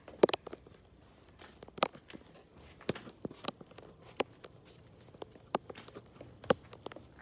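Footsteps and light knocks, irregular and roughly one a second, with the loudest knock just after the start.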